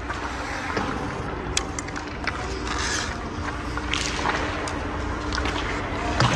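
Ice rink sounds under a steady low hum: skate blades scraping the ice in hissing swells, and a few sharp clicks of sticks and pucks.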